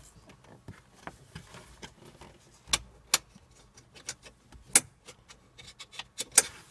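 Irregular sharp metallic clicks and clinks of an 8 mm wrench working bolts on a metal bar under a car's dashboard, loudest about three, five and six seconds in.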